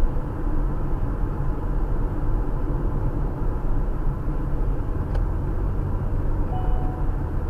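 Steady road and engine rumble inside the cabin of a Toyota RAV4 driving at freeway speed.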